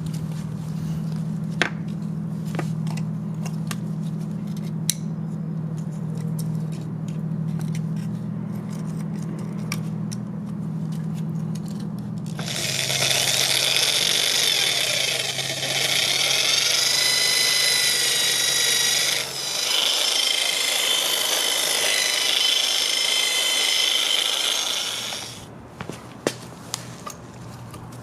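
A low steady hum, then about twelve seconds in a hand-held power tool starts up with a loud high-pitched whine that shifts in pitch, dips briefly partway through, and stops a few seconds before the end.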